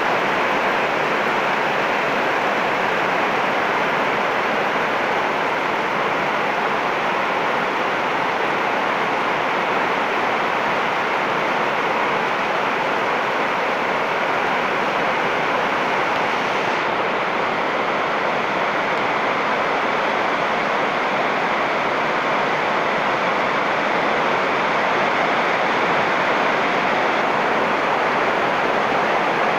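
Heavy rain falling steadily on leaves and waterlogged ground, a dense, even hiss without a break.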